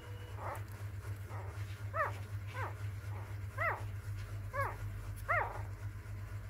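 Very young puppies whimpering: about six short, high cries, each rising then falling in pitch, spaced roughly a second apart.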